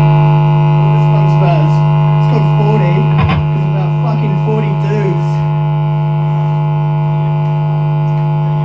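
Loud, steady electrical buzz from the band's amplification, a mains hum with many overtones that holds at one pitch without fading. A voice is faintly audible under it for a few seconds in the first half.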